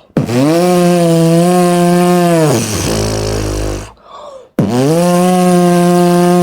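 Beatboxer's mouth imitation of a phone on vibrate: two long, steady, low buzzing hums, each about two and a half seconds, the first trailing into a lower rumble before a short break.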